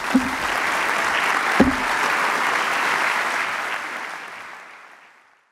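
Large audience in a hall applauding steadily, the applause fading away over the last second or so.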